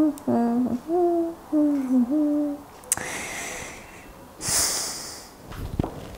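A child humming a few held notes of a tune, then a sharp click and two short hissing noises.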